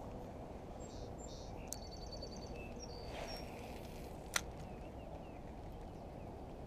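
Lakeside ambience: a steady low background noise with small birds chirping and one trilling in the first half. About four seconds in there is a single sharp click, the loudest moment.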